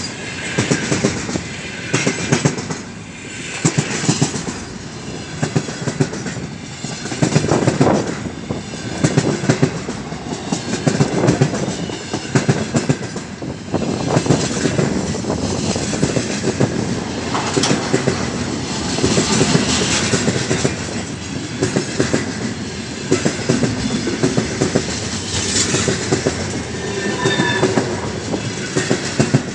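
Loaded container flatcars of a long freight train rolling past close by: a steady rumble with the wheels clattering over the rail joints, and a brief high wheel squeal near the end.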